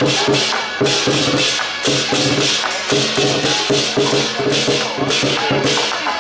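Lion dance percussion: a big drum and crashing cymbals beating a fast, steady rhythm of about three crashes a second, with a steady low pitched drone underneath.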